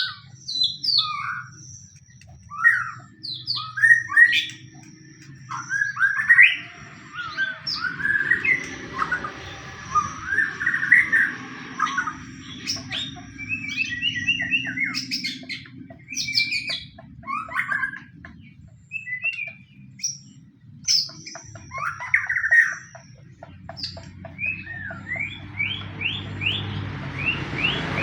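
White-rumped shama singing a fast, varied song of short whistles, upward and downward glides and trills, in an aggressive fighting mood of the kind used as a lure to set other shamas singing. A low steady hum runs underneath, and a hiss rises over the last few seconds.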